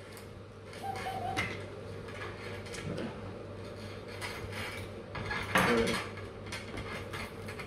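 Scattered light clinks and knocks of dishware being handled on a tabletop, with one louder clatter about two-thirds of the way through.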